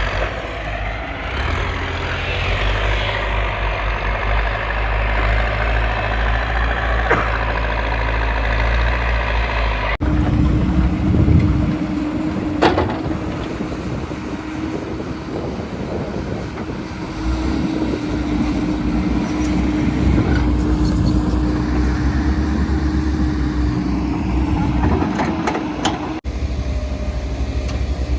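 Heavy diesel machinery running: the engines of a JCB excavator and a tipper truck. The sound changes abruptly about ten seconds in, and from then a steady whine runs through the engine noise, with a sharp click soon after; it changes abruptly again near the end.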